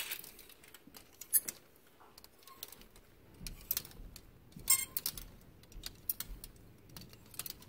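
Plastic clothes hangers clicking and clacking against each other and the rack as they are pushed along one after another, in short irregular clicks with a couple of sharper clacks.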